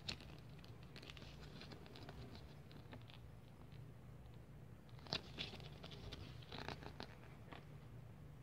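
Pages of a small paper instruction booklet being handled and turned: faint rustling with crisp paper clicks, busiest about five to seven seconds in, over a steady low hum.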